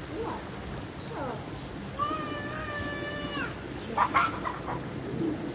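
Children's voices calling out: a short falling cry, then one long held high call lasting over a second that drops off at its end, and a brief loud burst of sound about four seconds in.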